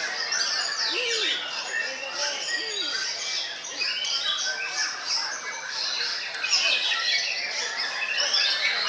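Several white-rumped shamas (murai batu) singing at once, a dense, unbroken tangle of overlapping whistles, trills and quick sweeps.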